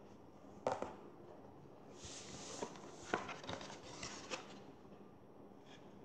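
Handling noises on a table: two sharp knocks under a second in, then a few seconds of rustling with quick clicks as a book and things on the table are handled.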